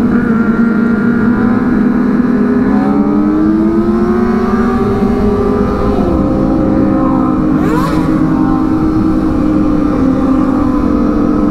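Kawasaki ZX25R's 249 cc inline-four engine running under way. Its revs climb steadily for a few seconds, then drop sharply at a gear change about six seconds in and hold steady.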